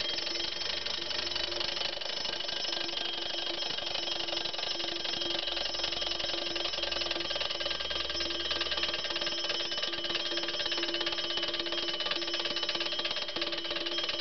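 Junghans mechanical alarm clock ringing: its bell is struck by the hammer in a fast, steady, unbroken run.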